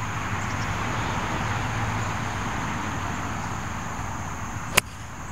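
Steady outdoor background noise: a low rumble with a constant thin high whine over it. One sharp click comes near the end, after which the background drops away.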